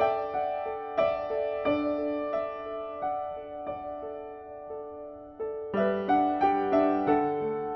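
Background music: a gentle piano melody, with notes struck about every half second and fading, and a fuller chord near the end.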